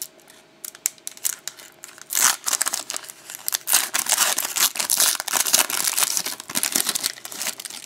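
The wrapper of a 2011-12 Elite hockey card pack crinkling and tearing as it is pulled open by hand. It comes in irregular crackly bursts, mostly from about two seconds in until shortly before the end.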